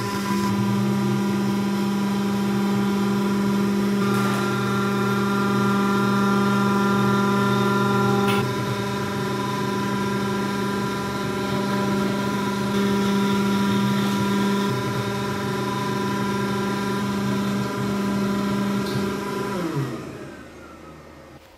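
Makera Carvera desktop CNC milling 3 mm aluminium sheet, its spindle turning at about 12,000 rpm with a loud, steady whine over the noise of the cut. Near the end the spindle winds down, its pitch falling as it stops.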